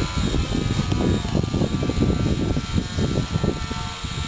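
Electric motor and propeller of a 3D aerobatic RC airplane whirring steadily as it hovers nose-up, under heavy wind buffeting on the microphone.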